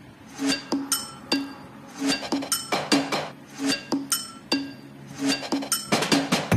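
Background music starting about half a second in: a light melody of short, ringing, chime-like percussive notes at a steady pace.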